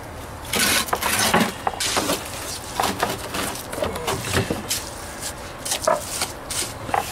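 Steel trowel scraping and slapping wet portland-cement mortar as it is packed into the joints around a flagstone, in irregular strokes that are loudest about a second in. A few short, higher-pitched sounds come in between.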